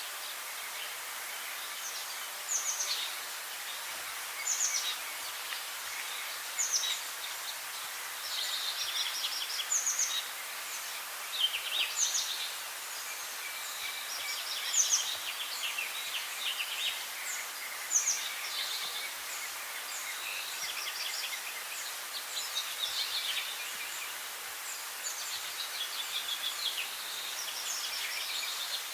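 Several songbirds singing: short chirps and rapid trills repeat every second or two over a steady background hiss.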